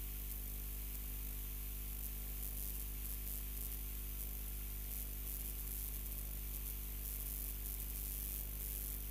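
Steady electrical hum and hiss, a buzzing line hum that does not change, with no other sound over it.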